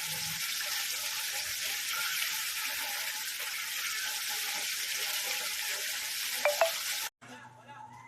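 Food frying with a steady sizzling hiss, two sharp pops about six and a half seconds in; the sizzle cuts off abruptly about seven seconds in.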